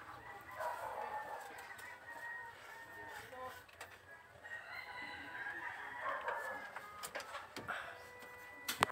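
Chickens clucking with a rooster crowing, faint, through most of the stretch. A few sharp clicks come near the end, the loudest just before it ends.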